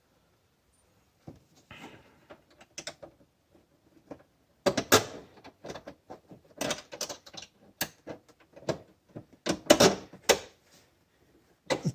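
Small metal latch parts and a bolt being handled and fitted into a side-by-side's door: scattered clicks, taps and knocks, loudest in the second half.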